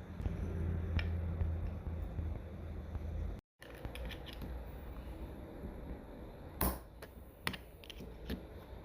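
Handling noise and sharp clicks of metal transmission parts and hand tools being worked on the bench: a low rumble of handling for about three seconds, a sudden cut, then a few separate sharp clicks near the end.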